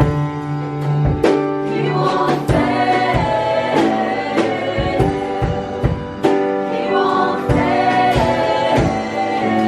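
Background music: a song with layered singing over a steady beat.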